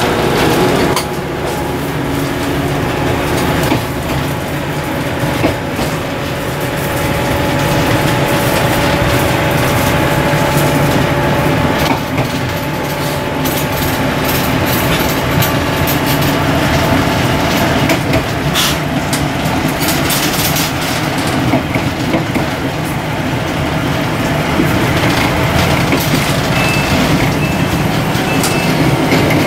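Taiwan Railway DR2700 series diesel multiple unit heard from inside its front cab, its diesel engine running steadily as the train pulls away from a station and runs along the line. Occasional clicks from the running gear over the track.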